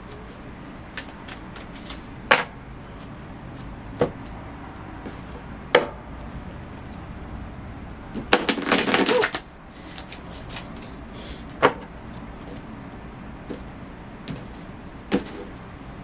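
A tarot deck being shuffled by hand: soft card rustling with sharp single card clicks every second or two, and a riffle shuffle rattling for about a second just past halfway, the loudest sound.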